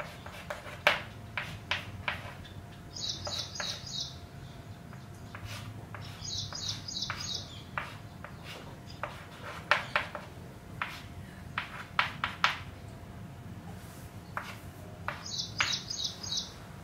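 Chalk knocking and scraping on a blackboard in short, irregular strokes as formulas are drawn; these are the loudest sounds. Three times a small bird chirps a quick run of four or five high notes: near the start, about six seconds in, and near the end.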